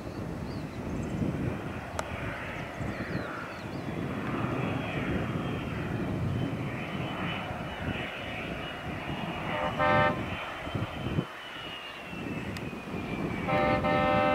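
Cessna Citation CJ3 business jet's twin Williams FJ44-3A turbofans during landing and rollout: a steady high engine whine over a low rumble, the whine dropping in pitch near the end. A horn sounds twice, briefly about ten seconds in and again for about a second near the end.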